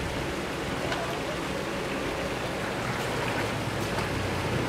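Steady splashing and churning of pond water, with a low motor hum underneath.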